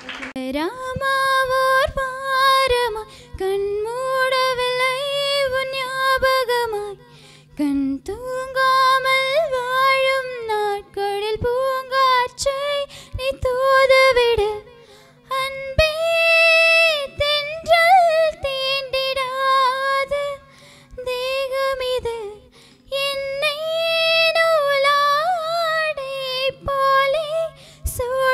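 A girl singing a solo song into a microphone, in phrases with short breaths between them and a higher held passage about halfway through.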